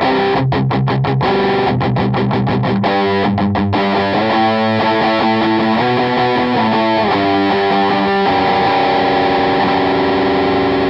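Distorted electric guitar through a Digitech RP1000 multi-effects pedalboard on its Plexi Drive preset, a Marshall Plexi amp model. It plays two runs of fast repeated notes, then a riff of changing chords, and near the end a chord is left ringing.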